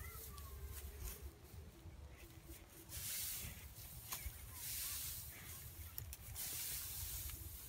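Faint rustling and crunching of dry rice straw stubble in short spells, over a low steady rumble.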